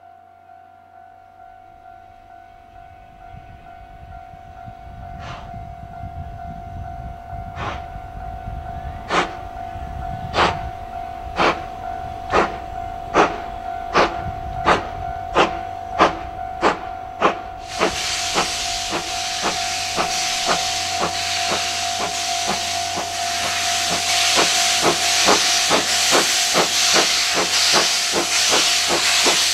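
C56 steam locomotive pulling away and picking up speed: sharp exhaust chuffs, at first well over a second apart, quicken to about two a second and grow louder as it draws near. Past the middle a loud, steady hiss of steam venting at the cylinders joins the chuffs.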